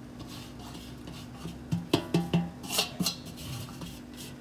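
Stainless steel plate knocking and clinking against the steamer pot a few times in the middle, some knocks ringing briefly, with fingers scraping damp rice flour off the plate.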